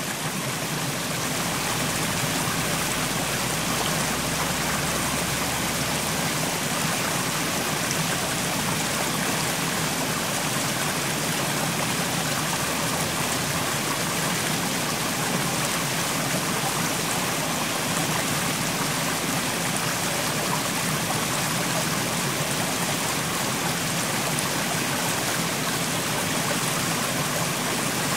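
Mountain stream: water rushing and babbling over rocks in a steady, dense flow.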